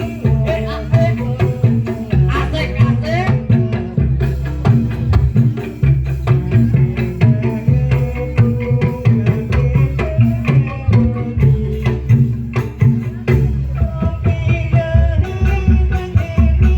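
Music with a busy, driving drum beat and heavy bass under a wavering melody line.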